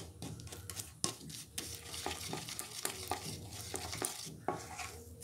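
Spatula stirring and scraping molten sugar around a kadhai in irregular short strokes and taps, with a light sizzle from the hot syrup. The sugar is melting down into syrup for sesame brittle.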